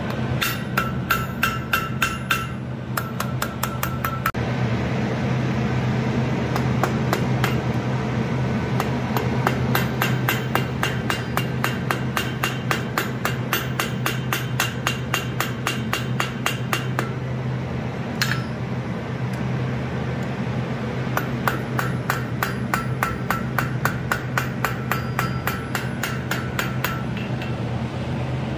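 Hand hammer striking red-hot steel held in tongs on an anvil: quick, steady blows about three to four a second, with the anvil ringing on many of them. The hammering stops briefly about two-thirds of the way through, with one lone blow, then resumes. A steady low hum runs underneath throughout.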